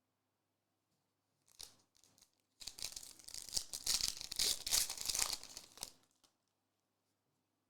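A trading card pack's foil wrapper being torn open and crinkled, a brief crackle followed by about three seconds of dense crinkling.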